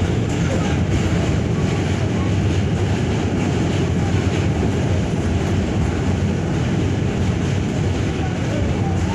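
R46 subway car running across the Manhattan Bridge, heard from inside the car: a steady, loud rumble of the wheels on the rails.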